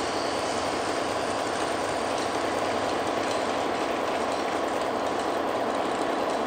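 American Flyer S-gauge model freight train rolling past close by: a steady, even rumble of metal wheels running on the track as the cars go by.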